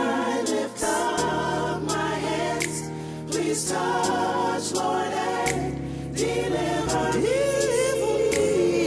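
Gospel song: a choir singing held, harmonised notes over keyboards and bass, the chords changing every second or so. Near the end one voice slides up into a long held note.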